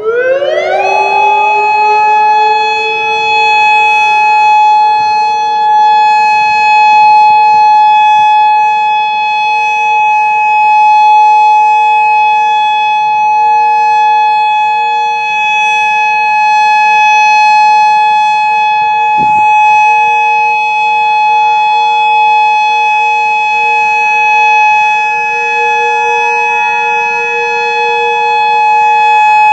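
Modulator 4016 electronic outdoor warning siren sounding its steady tone during a system test. It rises quickly in pitch within the first second, then holds one loud, unwavering tone.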